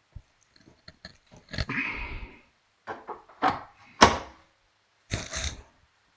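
Metal portafilter and tamper being handled for tamping the ground coffee: small clicks, a scrape and several knocks, the sharpest and loudest about four seconds in.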